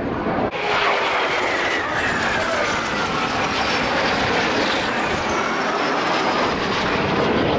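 Alpha Jet trainers flying past low in a display, a steady jet roar with engine whines that fall in pitch as the aircraft go by.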